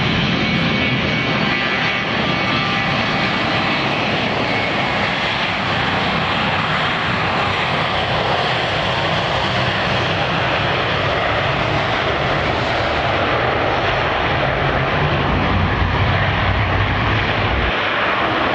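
Boeing 727-200 Super 27's three Pratt & Whitney JT8D turbofan engines at take-off thrust, a loud steady jet noise through the take-off roll and lift-off. A thin whine sits over it in the first few seconds, and a deep rumble grows stronger as the aircraft rotates and climbs away.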